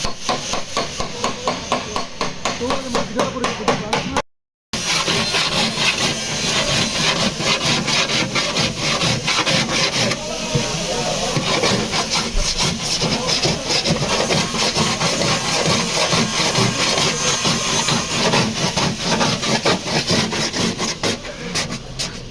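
Quick, repeated rubbing and rasping strokes of abrasive work on a car body panel.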